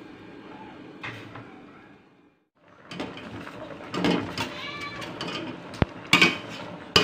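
Steady hiss of a pot of pempek boiling on the stove, cut off about two seconds in. Then a wire skimmer scraping and clinking against the stainless steel pot as the boiling fish cakes are stirred, with sharp metal clinks near the end. Around the middle comes a short wavering high-pitched cry.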